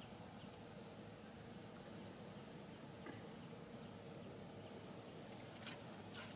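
Faint insect chirping in short trains of three or four high pulses every second or two, over a steady high-pitched insect hum, with a couple of light clicks near the end.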